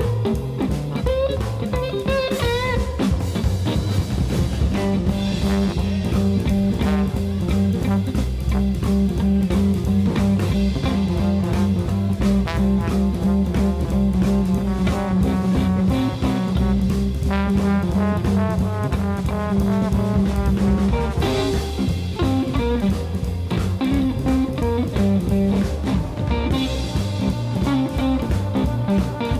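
Live jazz-funk trio music: an eight-string guitar playing bass line and chords together, with keyboards and a drum kit, loud and continuous.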